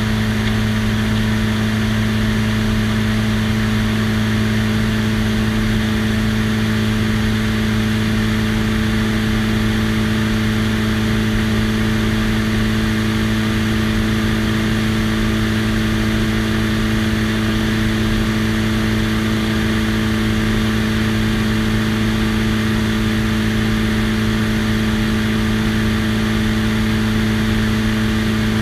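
Biplane's piston engine and propeller droning at a steady, unchanging pitch in level cruise, with slipstream wind rushing over the wing-mounted microphone.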